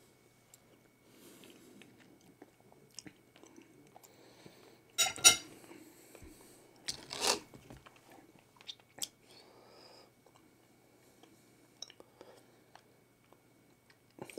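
Quiet chewing and mouth sounds of a person eating baked beans from a spoon, with small clicks of handling. There are two louder clusters of knocks about five and seven seconds in.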